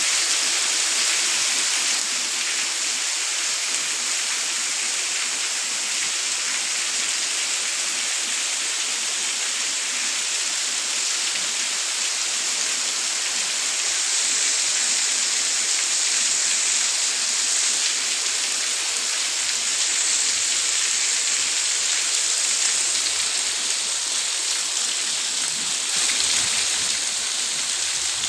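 Rain falling steadily: an even, dense hiss that holds at the same level throughout.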